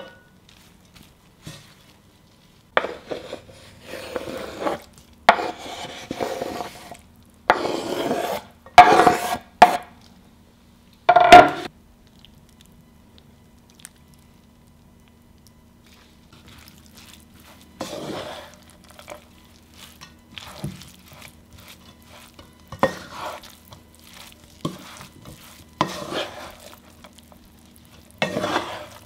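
A wooden spatula stirring and scraping a bulgur salad mixture in a stone-coated nonstick frying pan. A run of loud scraping strokes comes in the first half, then softer, sparser stirring after a pause.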